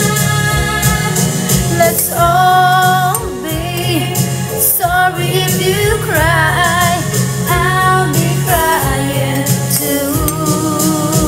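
A woman singing a slow song over backing music, holding long notes with a wavering vibrato in phrases of a second or two.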